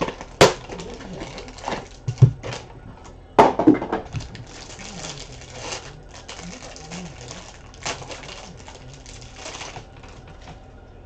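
Plastic wrapper of a trading-card hanger pack crinkling and tearing as it is opened, with a few sharp clicks and knocks from handling the pack and cards, the loudest about half a second in and around three and a half seconds in.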